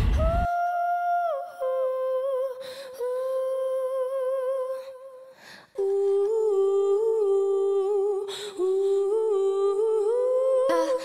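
A single voice humming a slow tune in long held notes with a slight waver, broken by short pauses between phrases.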